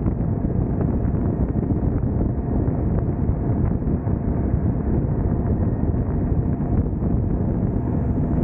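Wind rushing over the microphone together with the steady running of a Husqvarna Svartpilen 401's single-cylinder engine cruising at highway speed.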